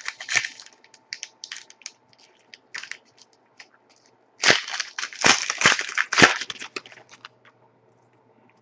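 Foil trading-card pack wrapper crinkling and being torn open, with cards rustling as they are handled. The rustles are scattered at first, then a louder burst of crinkling comes about four and a half seconds in and lasts around two seconds.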